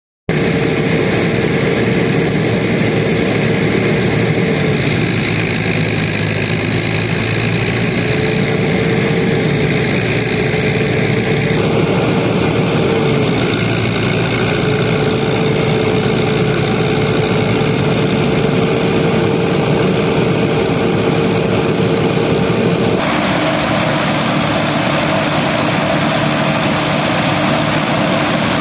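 Fiat tractor's diesel engine running steadily under load, powering a rice harvesting machine, with a steady high whine over the engine note. The sound changes abruptly twice, about twelve seconds in and again about twenty-three seconds in.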